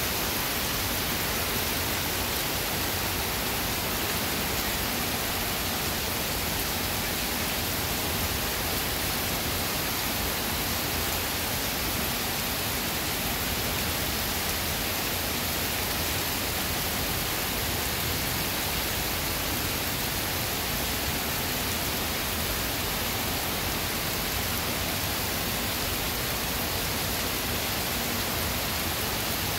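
Heavy rain pouring down steadily on paving and trees, an even hiss that holds without let-up.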